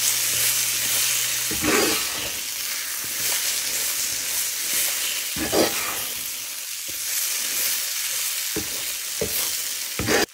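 A thick paste of soybean, potato and banana with spices sizzling steadily in hot oil in a kadai as it is stirred, with a spatula knocking against the pan a few times.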